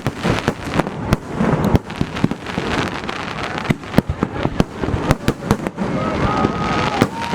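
Fireworks display heard close to the launch site: a dense, irregular barrage of bangs and crackles, many a second.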